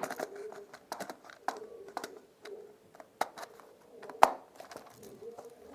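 Scattered plastic clicks and knocks from a toy automatic rifle being worked to shoot, with one sharp, loud click about four seconds in.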